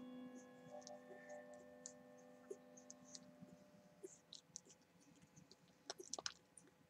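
Faint, irregular wet clicking and smacking from newborn Miniature Bull Terrier puppies suckling at their mother, the clicks coming thicker in the second half. A faint steady hum fades out over the first few seconds.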